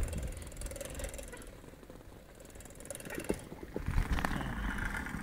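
Faint outdoor street background noise with a low, uneven rumble and a few light knocks in the second half.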